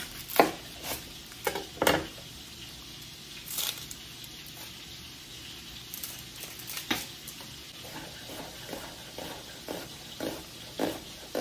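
Chicken livers sizzling in butter in a frying pan, a steady hiss, with scattered knocks of a knife on a cutting board as an onion is cut.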